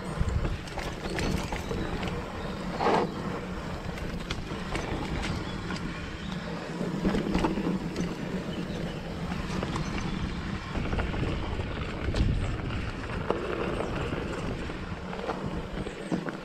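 Mountain bike riding down a dirt trail: steady tyre noise on the dirt with the chain and frame rattling and knocking over bumps, one louder knock about three seconds in, and wind buffeting the microphone.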